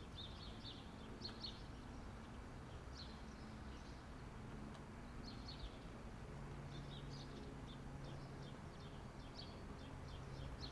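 Faint birdsong: small birds giving short, high chirps every second or so over a low, steady room hum.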